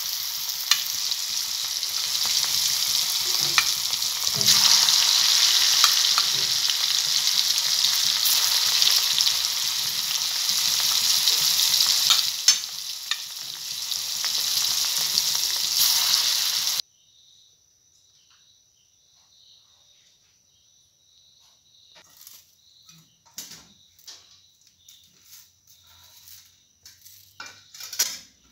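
Chicken pieces deep-frying in hot oil in a kadai: a steady loud sizzle with scattered sharp pops. About two-thirds of the way through it cuts off suddenly, leaving only faint steady high tones and a few light clicks.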